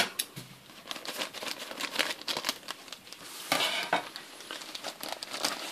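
Clear plastic bag crinkling as it is handled, a run of light crackles with a denser rustle about three and a half seconds in.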